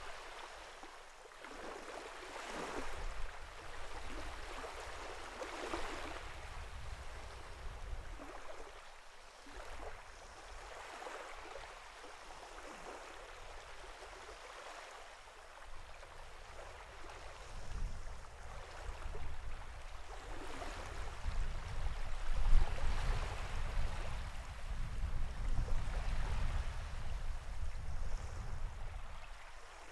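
Sea water washing in waves, the hiss swelling and easing every few seconds. A deep rumble builds in the second half, loudest a little past the middle.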